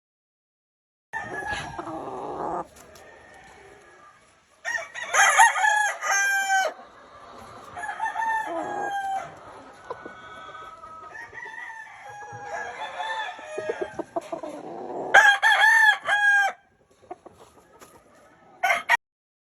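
Several gamefowl roosters crowing, some crows overlapping, with clucking in between. The loudest crows come about five seconds in and again around fifteen seconds, with a short one near the end.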